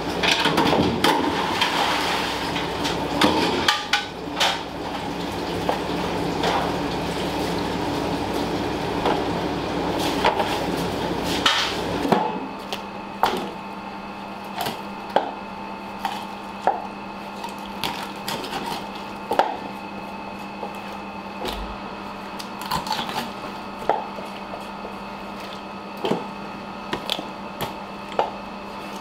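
Busy commercial kitchen: running water with dishes and utensils clattering. From about twelve seconds in, a steady ventilation hum with sharp, irregular knocks about once a second, a knife striking a cutting board as raw chicken is cut up.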